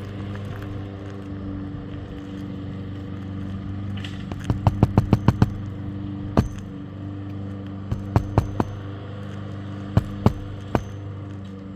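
Sharp strikes from work on roof shingles, most likely nails being driven: a quick run of about eight in a second, then single strikes a second or so apart. Under them runs a steady low mechanical hum.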